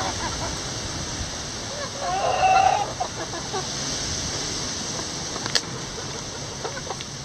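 Steady rain hissing over a flock of backyard chickens, with faint clucks. About two seconds in, one chicken gives a loud, drawn-out call lasting under a second. A single sharp tick comes a little past the middle.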